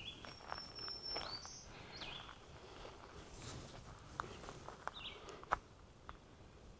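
Woodland songbirds calling faintly: a held, high whistled note near the start followed by several short chirps and whistles. A few light footsteps sound in the second half.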